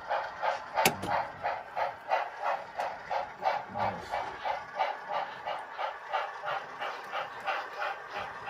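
HO scale model steam locomotive's sound decoder chuffing steadily, about three to four chuffs a second, as the engine pulls its train. A single sharp click cuts in about a second in.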